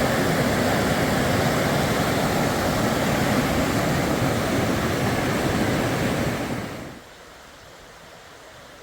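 Steady rushing of a fast shallow river, Pierce Pond Stream, flowing over rocks; it drops off abruptly to a faint hiss about seven seconds in.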